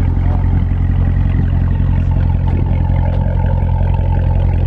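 Dodge Hellcat's supercharged 6.2-litre HEMI V8 running steadily at an even, unchanging pitch.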